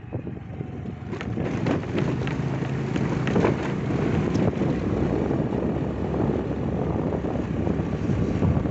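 Wind rushing over the microphone of a moving scooter, with the scooter's engine running underneath. The noise builds over the first second, then holds steady.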